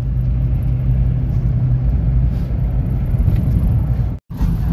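Steady low rumble of a vehicle's engine and tyres heard from inside the cabin while driving on a paved road. The sound drops out for a split second near the end.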